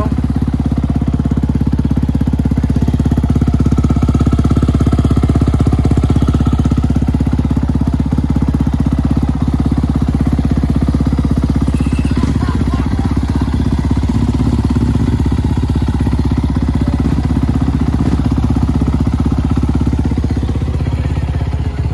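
Motocross dirt bike engine idling steadily close by.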